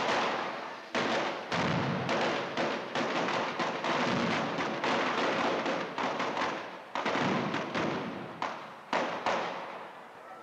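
A rapid string of firecracker bangs, about two a second, each trailing off in echo. There is a short lull about six seconds in, then a few last bangs before they stop near the end.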